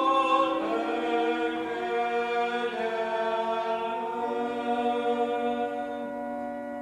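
Congregational singing of a Lutheran hymn, the close of its third verse: a few sustained notes, then a long final note held until it dies away.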